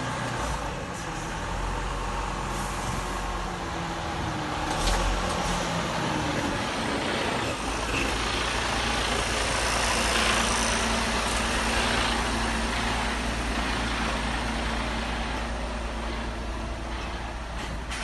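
Mercedes-Benz semi-trailer truck rolling slowly past at close range, its diesel engine running with a steady low rumble over tyre and road noise. The low hum settles into a steady drone about eight seconds in.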